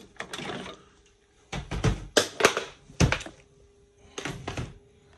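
Handling noise in about five short bursts of clicks and knocks, separated by quiet gaps.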